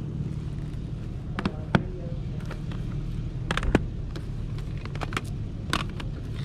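Plastic CD jewel cases clacking against one another as they are flipped through and handled, several sharp clacks over a steady low rumble.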